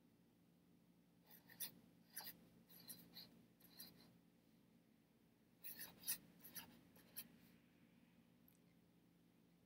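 Felt-tip marker writing on paper on a clipboard: faint scratchy pen strokes in two runs, the first over a few seconds, then a short pause, then a second run.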